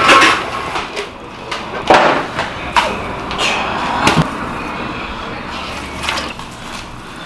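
Kitchen work noises around large cauldrons of soup: several sharp knocks and clatters at irregular intervals, over a steady background hiss.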